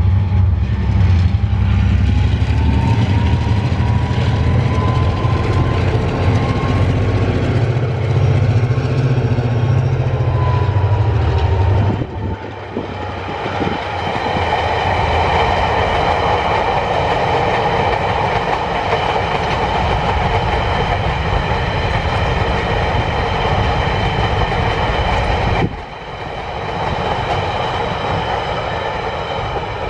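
TasRail diesel-electric freight locomotives passing close by, with a heavy low engine rumble and a whine that rises and then falls in pitch. About twelve seconds in the engine sound gives way to a long string of empty ore wagons rolling past, their wheels clattering over the rail joints with a steady thin high ringing.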